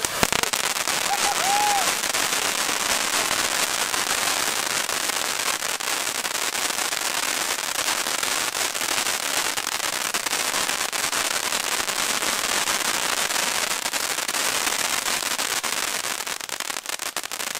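Funke Feuerwand Funkencracker-Rotblinker, a fan-shaped firework fountain wall, spraying sparks with dense, continuous crackling from its cracker stars. The crackle holds steady and begins to thin out near the end.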